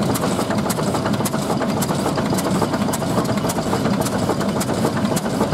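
1924 National petrol/paraffin single-cylinder stationary engine running steadily, belted to a small pump, with a regular sharp ticking about three times a second over a low rumble.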